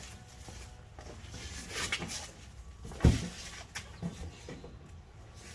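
Cardboard packaging being handled: scattered rustles and scrapes, with one sharp thump about three seconds in.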